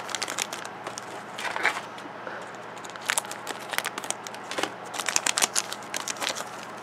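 Thin plastic blind-bag wrapper crinkling and tearing as it is opened by hand, in irregular crackles that come thicker in the second half.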